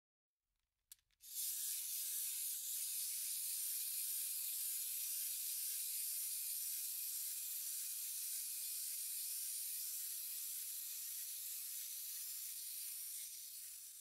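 Wind-up toy's clockwork motor: a couple of clicks about a second in, then a steady high whirr from the spring-driven gears, starting to fade near the end.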